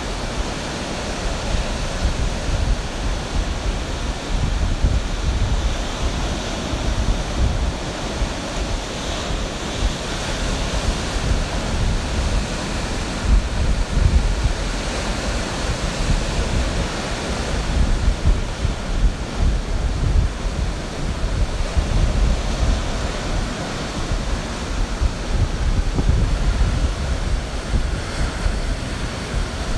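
Ocean surf washing in steadily, with slow swells in loudness, and wind rumbling on the microphone.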